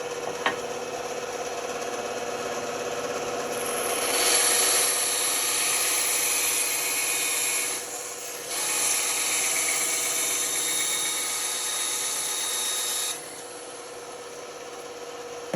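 Band saw running with a steady hum; about four seconds in, the blade starts cutting through wood with a loud rasping hiss, pauses briefly, carries on, and stops cutting near the end while the saw keeps running.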